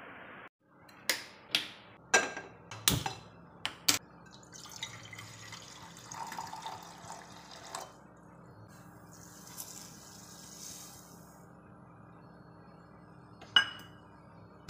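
Several sharp clinks and knocks of a steel saucepan and utensils in the first few seconds, then a low steady hiss of water heating in the pan on a gas burner while chai is being made, with one more sharp clink near the end.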